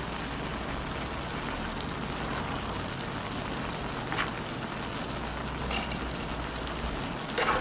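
Shrimp in sauce cooking in a frying pan, a steady sizzling hiss, with a few light clicks of a metal spoon against the pan as it is stirred from about halfway.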